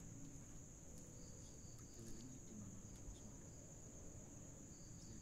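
Faint, steady high-pitched chirring of crickets, with a few soft clicks.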